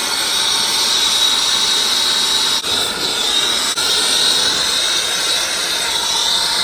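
Steady, loud hissing rush with a high whine running through it, dipping briefly twice.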